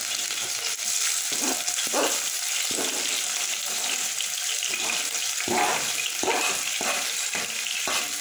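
Chopped onion and seasonings sizzling as they hit hot oil in a pot, the seasoning scalding in the oil at the start of a stir-fry. A fork scrapes and taps against the cutting board in a series of short strokes as it pushes the pieces in.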